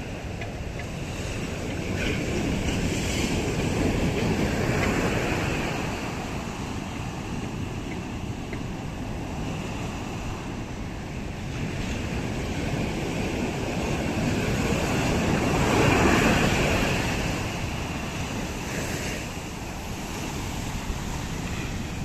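Ocean surf washing in continuously, with waves surging louder a few seconds in and again past the middle, over a steady rush of wind.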